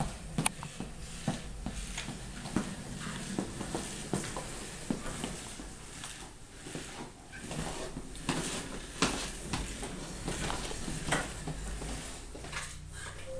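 Child's ride-on toy motorbike rolling and rattling, its plastic wheels and body giving irregular clicks and knocks.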